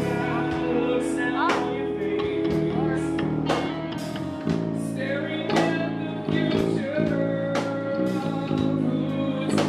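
A live rock band playing, with a male singer on microphone over guitar and drums. Sharp hits come about every two seconds.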